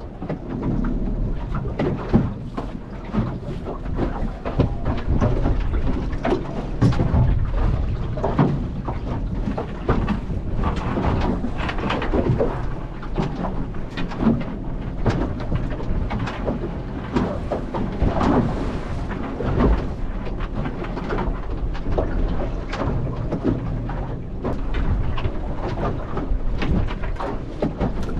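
Wind buffeting the microphone on a small aluminium boat, with choppy water splashing and scattered knocks as a crab pot is set over the side.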